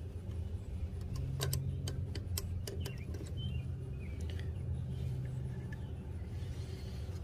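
Scattered sharp clicks of a wrench working the blade-holder bolts on a Delta TP300 planer's cutterhead while the new blades are tightened down, over a steady low hum.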